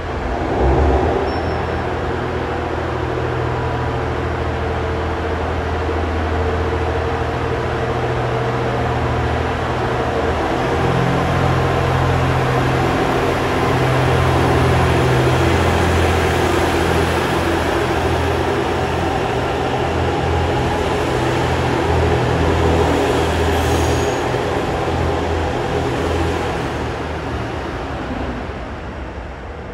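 Train at a station platform, a steady low hum over running noise. It grows louder towards the middle and fades away near the end.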